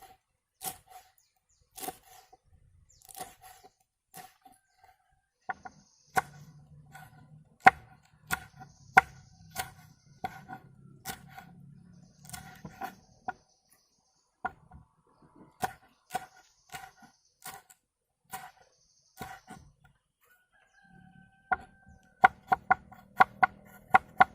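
A knife chopping pumpkin: single sharp strikes, each with a short ringing note, spaced irregularly, then a quick run of chops near the end.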